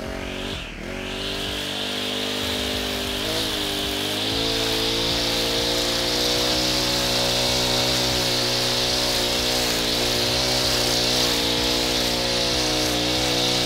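Honda string trimmer running, its line cutting grass along a lawn edge. It speeds up over the first few seconds, then holds a steady, slightly wavering pitch.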